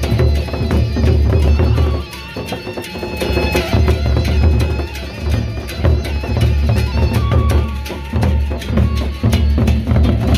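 Sasak gendang beleq ensemble playing: large double-headed barrel drums beating a steady, driving rhythm, with a high melody running over the drumming.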